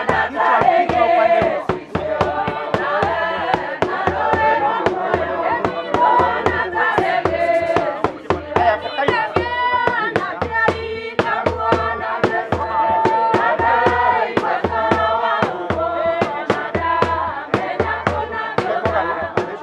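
A group of voices singing together as a choir, over a steady beat about twice a second.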